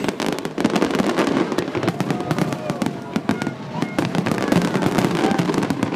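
Fireworks display in full barrage: many shells bursting overhead in quick succession, a dense run of sharp bangs and crackles over a steady low rumble.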